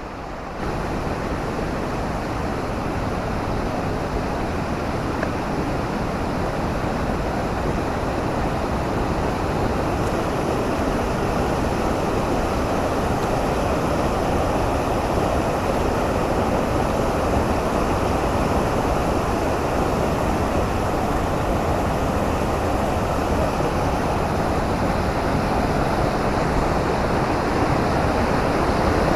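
Steady rush of fast-flowing river water, growing slowly louder.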